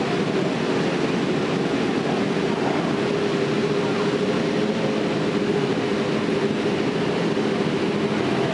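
A grid full of superbikes with their engines running while they wait for the start, blending into one steady drone.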